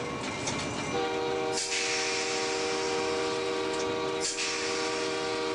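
Locomotive air horn heard from inside the cab of a VIA Rail F40PH-2, sounding one long chord blast that starts about a second in and is held on, over the running of the train. A rushing hiss rises with the horn about a second and a half in and drops out about three seconds later.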